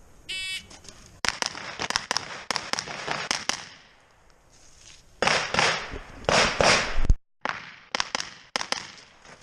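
Shot timer's start beep, then rapid rifle fire in three strings of shots separated by short pauses.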